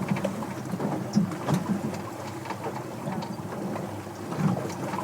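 Noise of a small boat on choppy water: an uneven low rumble of wind and water, with a few faint knocks.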